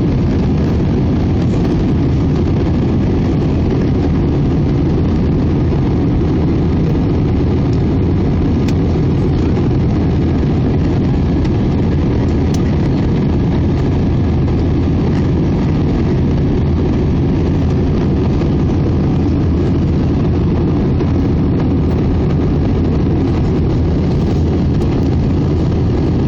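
Steady cabin drone of an Airbus A319 airliner in flight, heard from a window seat over the wing: jet engine and airflow noise, deepest and loudest in the low range, holding even throughout.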